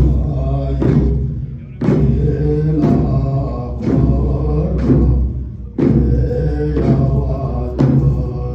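Ritual music of a Buddhist cham drum dance: the dancers' large round hand-held drums struck together about once a second, over a low sustained drone that breaks off briefly twice.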